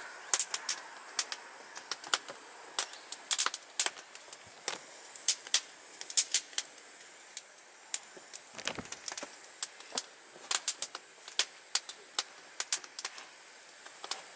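Small campfire of damp firewood crackling, with a quick, irregular run of sharp snaps and pops.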